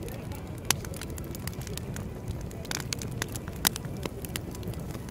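Wood campfire burning in a steel fire pit: a steady low rush of flame with scattered sharp crackles and pops, the two loudest just under a second in and about a second and a half before the end.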